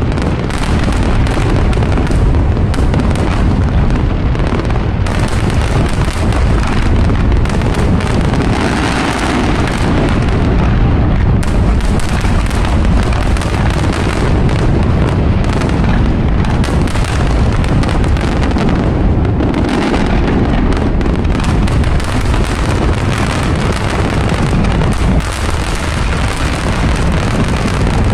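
Fireworks going off in a dense, continuous barrage of many overlapping bursts, loud and unbroken throughout.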